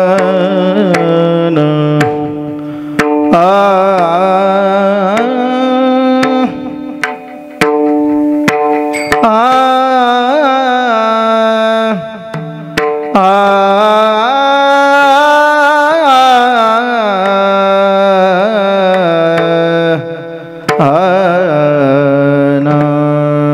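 A male voice sings a devotional Marathi kirtan melody through a microphone, in long held, gliding notes, over percussion that strikes sharply about once a second. It is the opening panchapadi song set of a Varkari kirtan.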